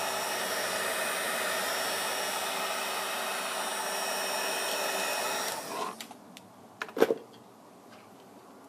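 A hot-air tool blowing steadily with a whine, switched off about two-thirds of the way through. Then come a few light clicks and a sharper knock.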